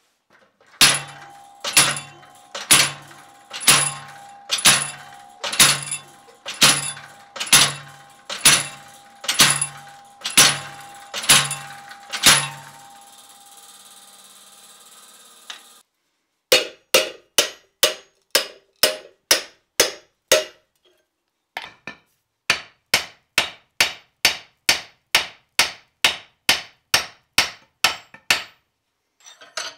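Hand hammer striking steel: about a dozen ringing blows, roughly one a second, driving a chisel through a red-hot bar. After a short gap come two faster runs of hammer blows on the hot steel, about two to three a second.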